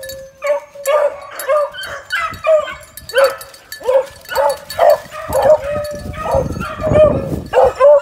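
Hound puppies yipping over and over, a short high call about every half second. In the second half, rustling of feet through dry leaf litter runs underneath.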